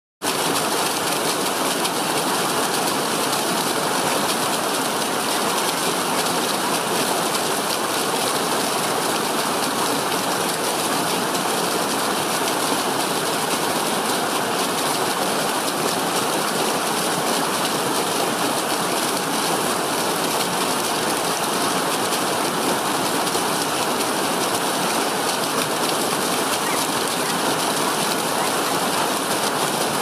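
Small mountain stream cascading over rocks in a steady, unchanging rush of water.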